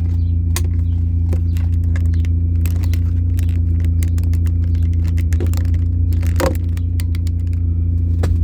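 Supercharged 2004 Mini Cooper S 1.6-litre four-cylinder engine running at a steady engine speed, a low even drone with no revving, with scattered small clicks and rattles over it.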